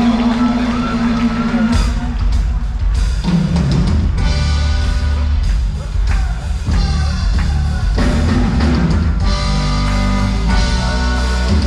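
Live band playing a song on stage: a singer over a drum kit and heavy bass, with the bass growing stronger about two seconds in.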